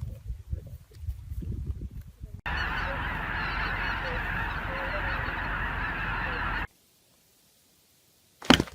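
Low rumble and thumps, then an abrupt cut to a dense, steady din of many animal calls at once, which stops suddenly after about four seconds.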